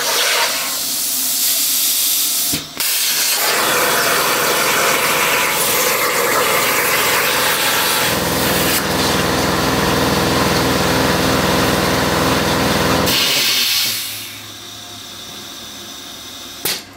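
CNC plasma cutter cutting steel plate: a loud, steady hiss of the arc and air, broken briefly about two and a half seconds in. A deeper hum joins the hiss for about five seconds in the second half, and the hiss stops about three seconds before the end, leaving a fainter hum.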